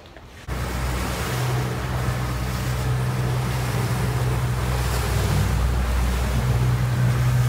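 Motorboat under way at speed: its engine hums steadily under the rush of water along the hull and wind buffeting the microphone. The sound starts abruptly about half a second in.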